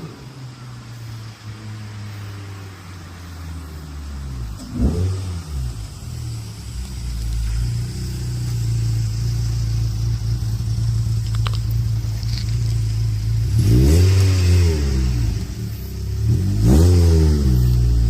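Volkswagen Golf Mk2 engine idling and revved in quick throttle blips: a short one about five seconds in, then two bigger rises and falls in engine speed near the end.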